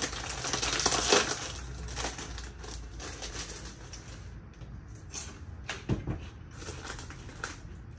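Plastic snack packet crinkling and crackling as it is torn open and handled, with one sharper crackle about six seconds in.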